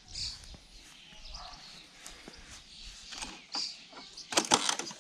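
A quick burst of clicks and rattles about four and a half seconds in, as hands work the pull cord of a Ryobi petrol lawnmower's recoil starter up into place, with a few lighter clicks of handling before it.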